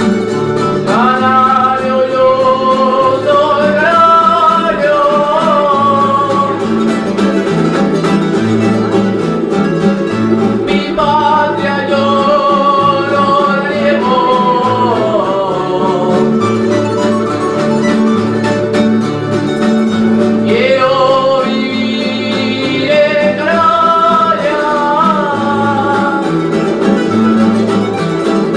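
Canarian folk group playing: steady strummed guitars and plucked string instruments under a sung melody that comes in three phrases, with gaps of instrumental strumming between them.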